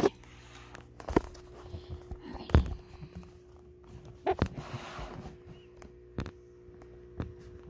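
Things being handled and set down: about seven scattered knocks and clicks with a few short rustles, over a faint steady hum.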